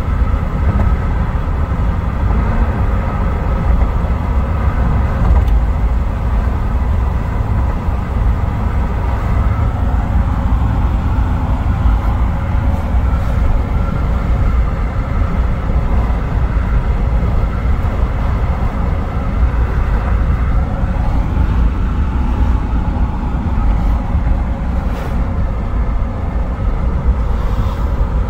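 Steady noise inside a moving car's cabin: a low, even rumble of tyres on the road and the engine, unchanging throughout.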